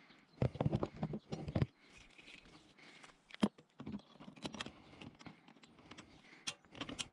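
Hands handling a small rope pulley and its metal hook while fitting them to a jet ski trailer's winch post: a burst of rubbing and knocking in the first second or so, then scattered sharp clicks and light clanks, the loudest a single click about three and a half seconds in.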